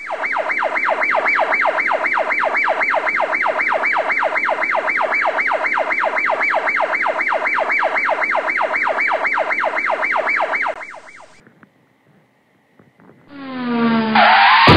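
Electronic emergency-vehicle siren in a fast yelp, sweeping up and down about four times a second, stopping about eleven seconds in. Near the end a loud whoosh with a falling tone comes in.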